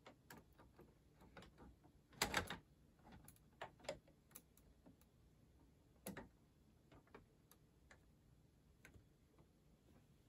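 Faint plastic clicks and knocks of Lego bricks and Technic beams as a bascule bridge leaf is lowered by hand, with a short cluster of louder knocks about two seconds in and scattered lighter ticks after.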